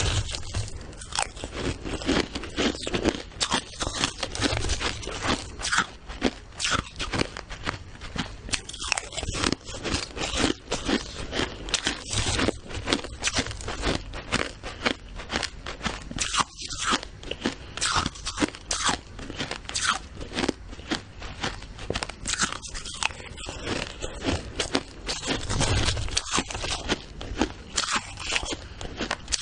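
Close-up crunching of shaved ice being bitten and chewed, a rapid, continuous run of crisp crunches.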